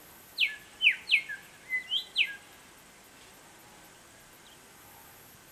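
A songbird singing one short phrase of about six quick whistled notes, most of them sliding down in pitch, starting about half a second in and over within two seconds.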